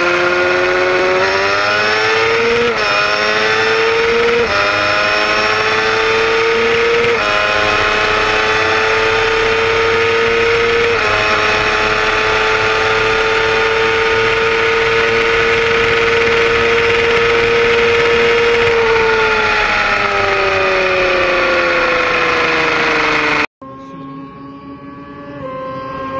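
Sportbike inline-four engine at full throttle in a roll race, its pitch climbing through the gears with four quick drops at the upshifts, then holding high revs for several seconds before the throttle rolls off and the pitch falls. About three seconds before the end the sound cuts to a quieter roadside recording of a bike engine rising and then falling in pitch.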